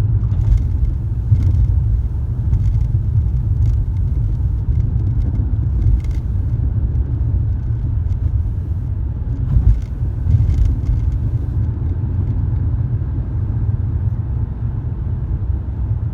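Steady low rumble of a 2003 BMW E46 325xi on the move, with irregular short clunks scattered through it, most of them in the first ten seconds or so. This is the driver-side clunking noise the owner is trying to diagnose.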